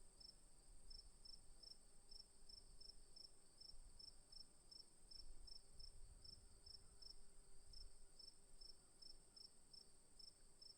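Crickets at a faint level: one holding a continuous high trill while another chirps in a steady rhythm of about three chirps a second.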